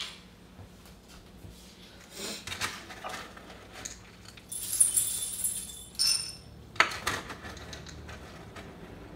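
A clear canister of dry dog kibble being opened and plastic measuring cups handled: rustling scrapes, then a few sharp clicks and clinks about six and seven seconds in.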